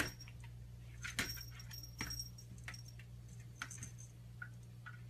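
Small bell on a cat's collar jingling in several short bursts as the cat paws at a closet door, with light taps of its paws against the door.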